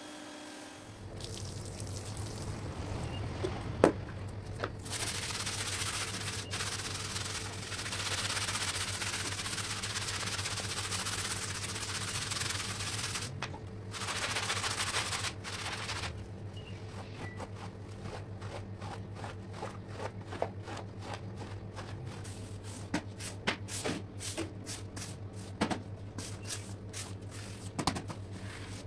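Stiff brushes scrubbing a wet, soapy rug on a tile floor. A hissing wash fills the first half, then rapid scratchy strokes come in quick succession, over a steady low hum.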